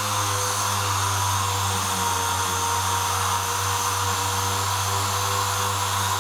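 Random orbital sander with a 240-grit disc running steadily while sanding clear filler on a carbon-fibre panel: an even hum with a hiss over it.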